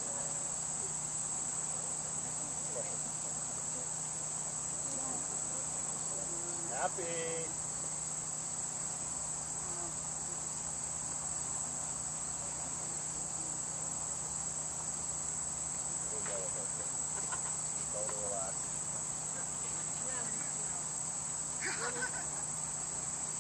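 Steady, high-pitched chorus of insects in the surrounding grass and trees, unbroken throughout, with a few faint distant voices now and then.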